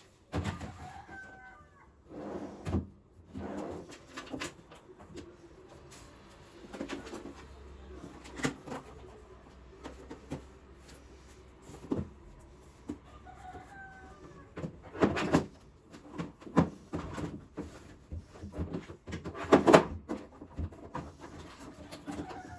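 Household items and containers being handled, with repeated knocks and clatter, the loudest bangs about two-thirds of the way through. A bird gives short calls in the background about a second in and again near the end.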